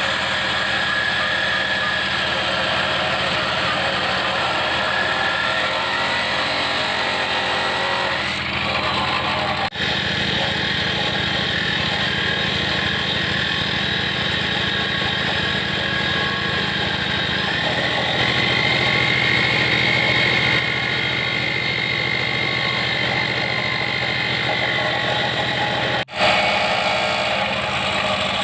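NRT PRO electric jigsaw running steadily while cutting metal pipe, its motor whine rising in pitch twice as the load changes. Two very short breaks interrupt it, about ten seconds in and near the end.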